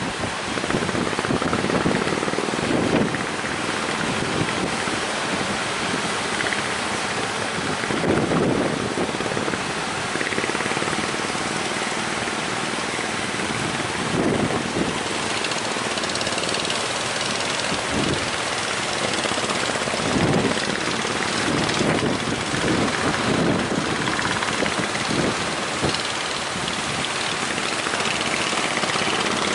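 Speedboat's outboard engine running steadily under way, with strong wind buffeting the microphone in irregular gusts.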